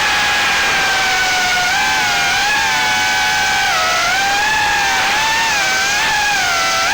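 Brushless motors of a 3-inch FPV quadcopter (GEPRC 1206 4500kv with Gemfan 3028 props) whining in flight, the pitch wavering up and down with throttle, then jumping sharply higher near the end as the throttle is punched.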